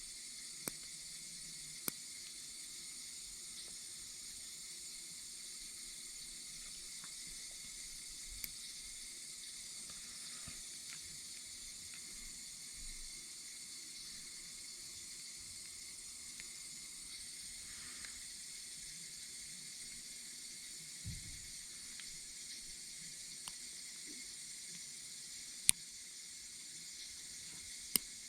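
Steady faint hiss with a few small, sharp clicks scattered through it, the loudest about three-quarters of the way in and another near the end: small tools and drone parts being handled during a delicate camera gimbal repair.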